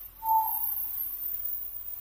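A short whistling tone about a third of a second in, over a faint, steady high-pitched hiss.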